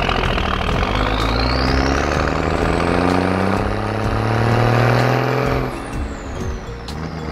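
Truck engine sound effect accelerating, its pitch climbing steadily for about five seconds, then dropping away about six seconds in.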